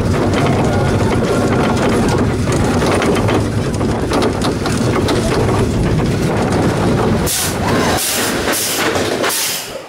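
A Vekoma mine train coaster rolls along its track with a loud, steady rumble. Near the end come four short hisses of air, typical of the train's pneumatic brakes working as it slows into the covered brake run, and the rumble then dies down.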